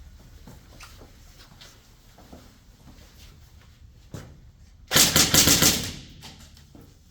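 Airsoft gun firing a rapid burst of about a second, about five seconds in, after soft shuffling and clicks.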